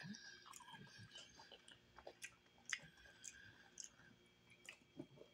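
Faint, wet mouth sounds of a person chewing soft cooked chitterlings (pork intestines), with small scattered lip and mouth clicks.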